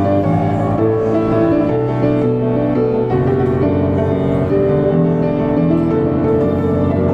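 Diapason grand piano being played: a continuous flowing passage of melody over sustained chords, notes changing every second or so.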